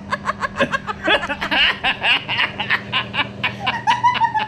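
A man and a woman laughing hard together in quick, rapid bursts of giggling and snickering, with a drawn-out high note of laughter about four seconds in.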